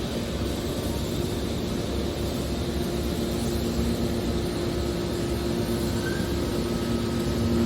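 Hydraulic metal scrap baler's power unit running steadily, a constant machine rumble with a steady two-note hum.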